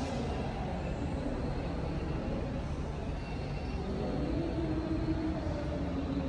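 Steady low rumble and hiss of a large indoor space, with faint, indistinct wavering tones in the background.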